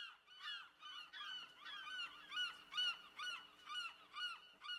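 Geese honking, short calls following each other about three a second and sometimes overlapping.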